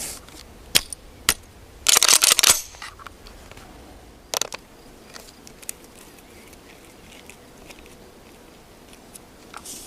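Metallic clicks and clacks of a Derya MK-12 VR-80 semi-automatic 12-gauge shotgun being handled: two single clicks, then a loud rattling cluster of clacks about two seconds in, another sharp clack about four seconds in, and a few faint ticks.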